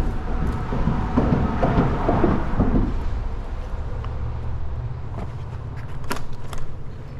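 Wind rumbling on the microphone outdoors in a cold front, with a stretch of rustling and crunching about a second in, and two sharp clicks near the end.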